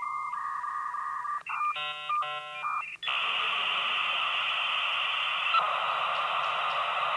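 Dial-up modem connecting: steady tones, then a warbling run of tones about a second and a half in, then from about three seconds on a loud, steady hiss as the modems negotiate the link.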